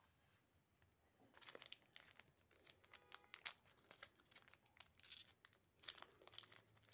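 Pokémon TCG Scarlet & Violet 151 booster pack's foil wrapper crinkling and tearing as it is opened by hand, starting about a second and a half in as faint, quick crackles.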